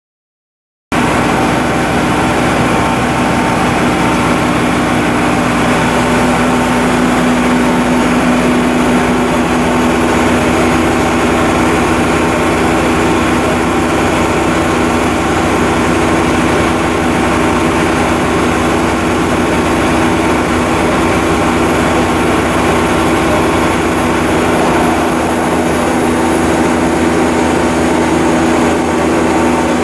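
Mazak IVS-200 CNC vertical turret lathe running under power: a loud, steady machine hum with a strong low tone, starting abruptly about a second in. The deepest rumble drops away near the end.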